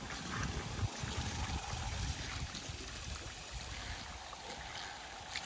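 Pool water sloshing and trickling as a coiled pool vacuum hose is pushed down into it to prime the hose, forcing the air out.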